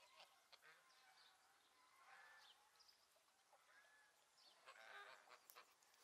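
Faint soft calls from a flock of domestic geese, a few short arched calls about two and four seconds in, amid light scattered ticks.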